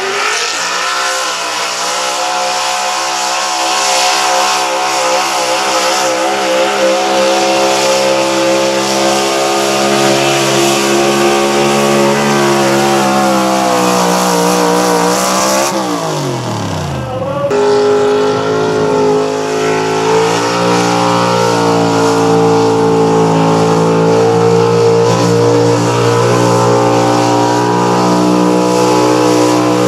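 Pickup truck engines at full throttle pulling a sled down a dirt track. The first engine holds high revs under load, then falls off with a sharply dropping pitch about 16 seconds in as the pull ends. About a second later another truck's engine is heard pulling at full throttle.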